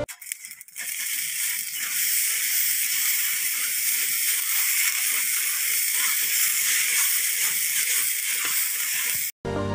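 Rice grains roasting in a dry flat pan, swept round with a bundle of bamboo sticks: a steady hissing, rustling scrape that starts about a second in and cuts off abruptly just before the end.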